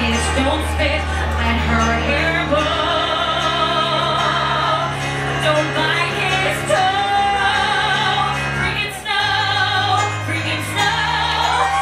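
A woman singing a ballad live through a microphone, her voice amplified over live piano accompaniment.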